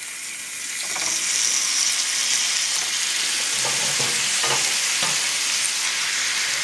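Raw ground pork, ground beef and chopped onion sizzling as handfuls are dropped into a hot, oiled cast iron skillet. The sizzle swells about a second in and then holds steady.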